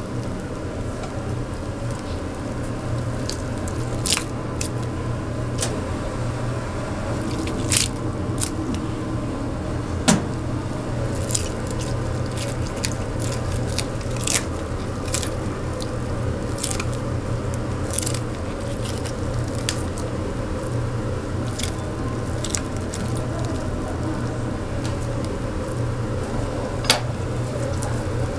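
Kitchen food-preparation sounds: scattered sharp clicks and cracks over a steady low hum.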